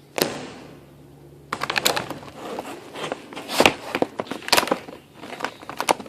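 A single knock just after the start, then stiff plastic blister packaging crinkling, crackling and clicking irregularly as it is pried and pulled open by hand.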